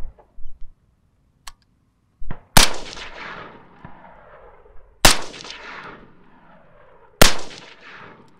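Three suppressed shots from a 10.5-inch 5.56 AR-15 fitted with a home-built Form 1 suppressor, about two and a half then two seconds apart. Each crack is followed by a long rolling echo that fades out, and there is a faint click a second or so before the first shot.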